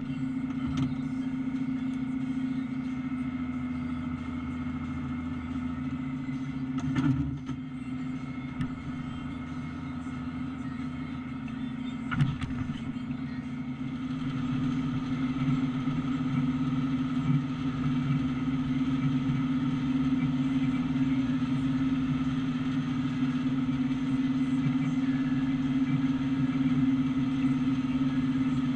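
Tractor diesel engine running steadily as it pulls a forage harvester, with a short knock and a sharp clack in the first half. About halfway through, the sound grows louder and brighter as the forage harvester chops standing corn for silage.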